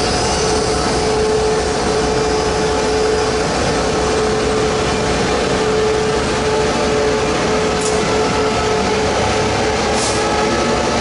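Taiwan Railway E1000 push-pull express's electric power car passing close by, a steady electric whine over running noise, with its tones climbing in pitch near the end. Two brief high clicks come about eight and ten seconds in.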